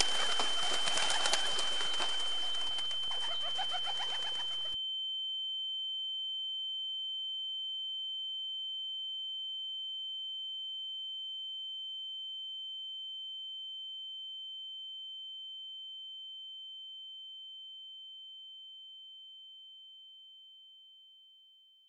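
High-pitched ringing tone, a film sound effect, struck just before and fading slowly away over about twenty seconds with a few fainter higher and lower overtones. A hiss of background noise under it cuts off abruptly about five seconds in.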